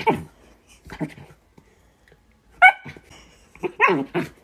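A dog gives a handful of short, pitched calls while play-fighting with a cat, some of them sliding in pitch, with brief pauses between them.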